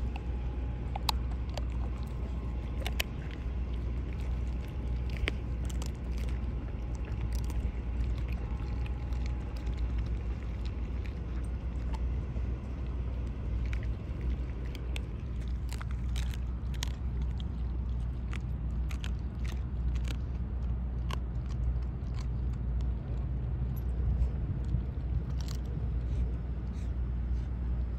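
A German Shepherd chewing raw chicken bones: irregular sharp crunches and cracks, over a steady low rumble.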